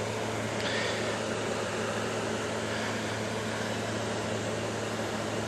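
Steady low machine hum with hiss, with a faint click about a second in.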